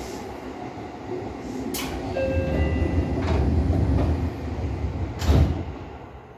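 Passenger doors of a Seibu 2000 series commuter train sliding, amid the train's rumble: a click about two seconds in, a brief steady tone, then a loud thud about five seconds in as the doors reach their stops.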